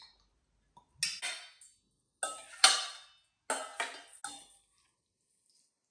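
Metal spoon clinking and scraping against a stainless steel mixing bowl as the ceviche is tossed, in a few short clattering bursts, the loudest about halfway through.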